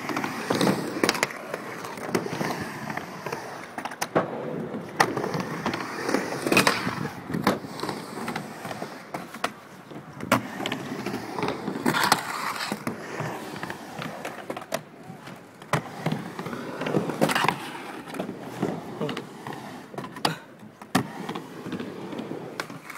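Skateboard wheels rolling up and down ramp transitions, with many irregular sharp clacks and thuds of the board hitting the coping and landing on the ramp.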